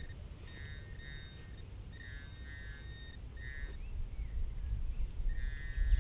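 Hand-held metal-detecting pinpointer sounding short bursts of a high buzzing tone, about five times, as it is probed around the dug hole for the target, over a low wind rumble.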